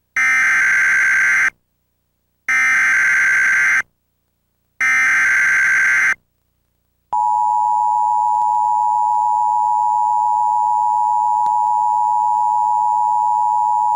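Emergency Alert System signal for a severe thunderstorm warning. Three identical screechy data bursts of the SAME header, each about a second and a half long with short gaps between them, announce the alert. About seven seconds in the steady two-tone EAS attention signal (853 and 960 Hz together) starts and holds.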